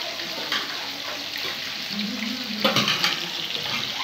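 Fish deep-frying in hot oil in an iron kadhai, a steady sizzling hiss, with a single sharp knock about two and a half seconds in.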